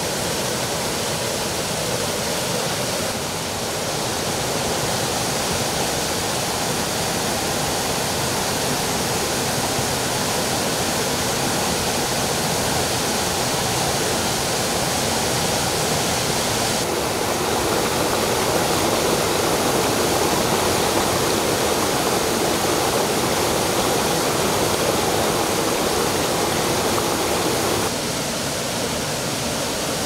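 A waterfall and mountain stream rushing steadily over boulders. The rush changes tone suddenly a few seconds in, about halfway through and near the end.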